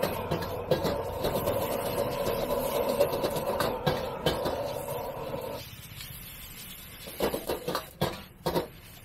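Commercial gas wok burner running with a steady rush under the wok while a steel ladle knocks and scrapes against the wok as the noodles are stir-fried and tossed. A little over halfway through the burner's rush cuts off, leaving only sharp clacks and scrapes of the ladle on the wok.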